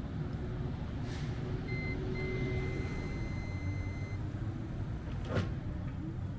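Motor vehicle running with a steady low rumble. A single steady electronic beep tone sounds for about two and a half seconds, with a brief break just after it starts, and a sharp click comes near the end.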